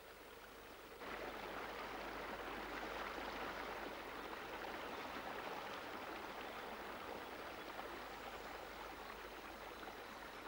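Stream water rushing over a small rocky cascade into a pool: a steady rushing hiss that comes in louder about a second in and then slowly eases.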